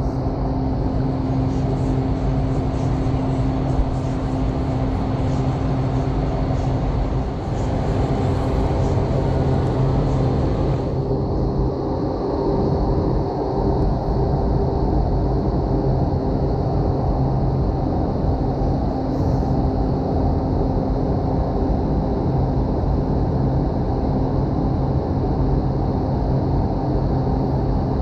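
Street traffic on a busy road, over a steady low machine hum. The higher hiss of the traffic drops away sharply about eleven seconds in.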